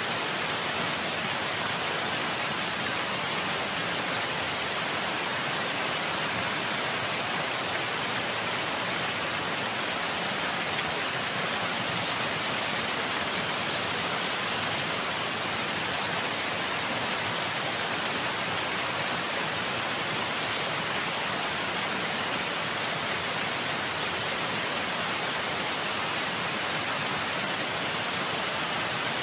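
Water sound effect: a steady, unbroken hiss of rushing or falling water, like heavy rain or a waterfall.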